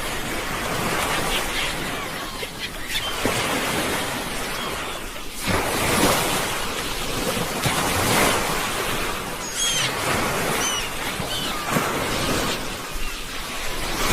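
Sea waves breaking and washing on the shore, surging and easing every few seconds. A few short high chirps sound briefly about two-thirds of the way through.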